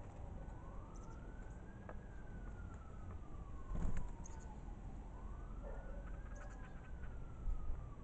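Fire-engine siren wailing, its pitch rising and falling slowly in long sweeps. A few sharp knocks and taps come from a crow pecking at a seed feeder, the loudest just before halfway and near the end.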